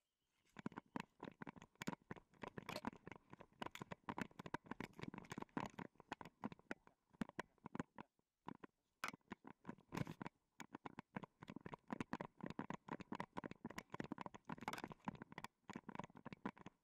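Dense, irregular rustling and crunching from a camera strapped to a moving dog's back: the mount shifting against the dog's fur as it trots through snow and dry grass stems. There is a short lull about halfway.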